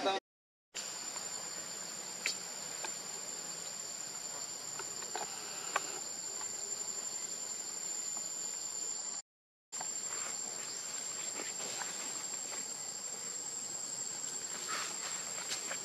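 Insects droning steadily at one high pitch over faint forest ambience, with a few faint ticks. The sound drops out completely twice for about half a second, once just after the start and once about nine seconds in.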